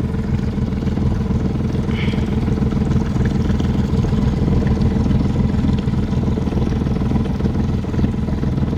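Boat engine running steadily at an even, low speed: a constant low engine drone with no change in pitch.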